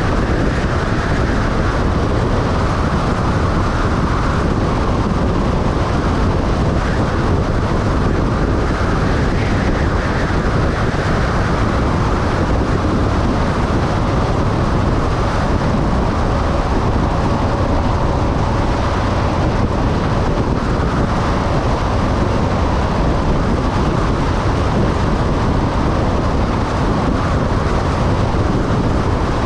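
Steady road and wind noise from a vehicle driving at highway speed, with a faint steady whine for several seconds around the middle.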